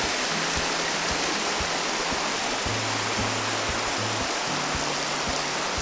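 Steady rush of river water running over rapids, an even hiss at constant level, with faint low humming tones coming and going underneath.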